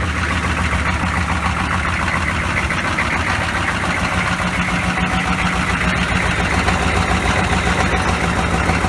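GM 6.5-litre turbo-diesel V8 idling steadily after a cold start.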